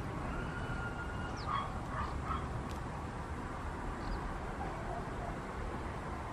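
A dog barking faintly, a few short yips about one and a half to two and a half seconds in, over a steady low rumble.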